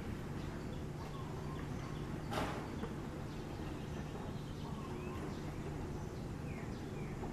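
Outdoor ambience: a steady low hum with faint, short bird chirps, and one brief rushing noise a little over two seconds in.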